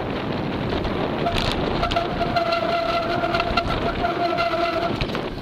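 Bicycle rolling fast over a rough dirt trail: steady rattle and wind rush, with a thin steady squeal lasting about three seconds in the middle.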